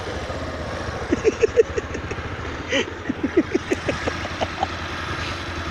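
Motorcycle engine running steadily as the bike rides along a dirt track. Two runs of short, sharp blips cut through it, about a second in and again from about three to four and a half seconds in.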